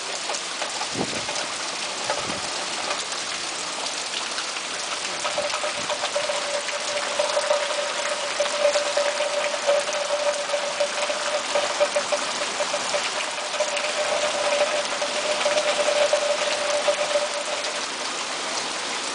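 Heavy hurricane rain pouring down in a steady hiss. A steady single-pitched hum comes in about five seconds in and stops shortly before the end.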